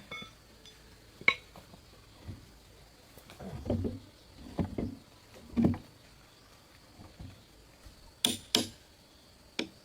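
Scattered knocks and thuds of wood being struck: a sharp knock about a second in, a run of duller thuds around the middle, and two sharp knocks near the end.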